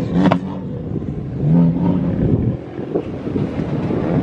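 Car engines running as many cars drive out of a crowded parking lot, one engine tone held steady near the middle, with wind on the microphone.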